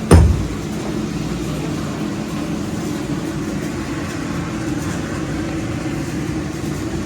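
A single heavy thump right at the start, then a machine running steadily with a low hum.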